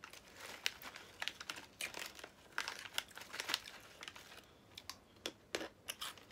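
Snack packet crinkling as it is handled, a faint run of irregular crackles.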